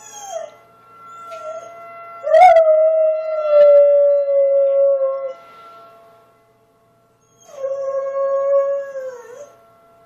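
Dog howling in answer to a tornado siren: two long howls, the first about three seconds long, jumping up at its start and then slowly sinking in pitch; the second about two seconds long, dropping at its end.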